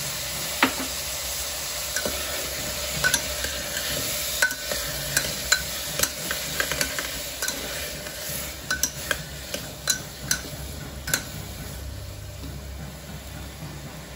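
Chopped potatoes, carrots and tomatoes sizzling in hot oil in a pressure cooker as they are sautéed. A stirring utensil knocks and scrapes against the metal pot many times before the stirring stops near the end.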